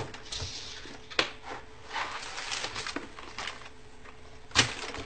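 Rustling and handling noises with a few sharp knocks, the loudest near the end, as a handbag box and its packaging are passed over and handled.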